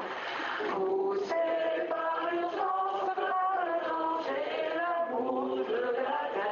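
Music with voices chanting a melody together, holding notes that change pitch every second or so.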